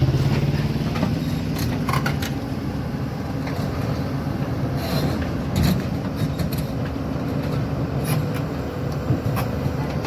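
Excavator's diesel engine running steadily, with a few sharp metallic knocks and clanks scattered through it.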